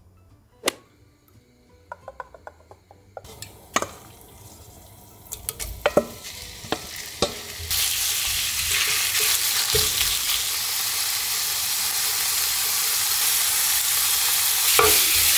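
Wooden spatula knocking and scraping against a pan and bowl, then, about halfway through, diced raw chicken starts sizzling in a hot frying pan as it is stirred with a wooden spatula. The sizzle grows slowly louder.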